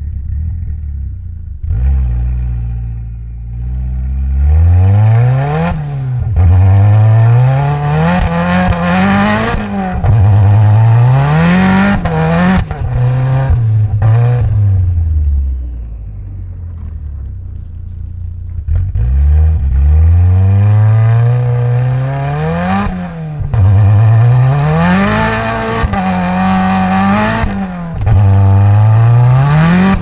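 Mitsubishi Lancer Evolution X's turbocharged 2.0-litre four-cylinder engine, tuned to about 500 hp, accelerating hard in the lower gears: its pitch climbs and drops back again and again at gear changes and lifts, with a quieter, lower-revving stretch about halfway through.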